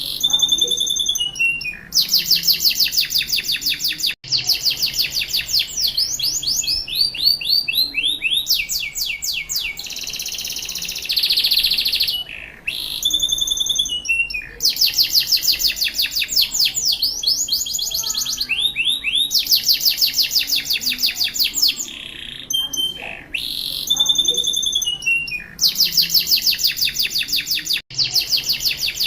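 Domestic canary singing vigorously: long fast rolling trills of rapidly repeated high notes and sweeping glides, one run after another with barely a pause.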